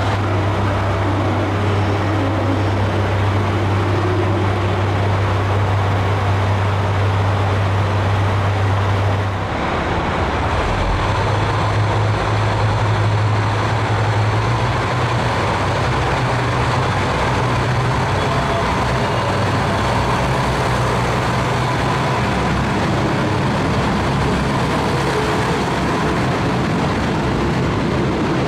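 Diesel railcar engine running at a steady low hum, then changing about nine seconds in and rising slightly in pitch a few seconds later as the engine speed picks up.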